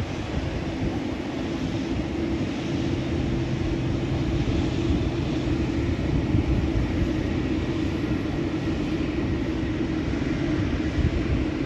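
Jet airliner engines running with a steady, even rumble and hiss that doesn't change pitch.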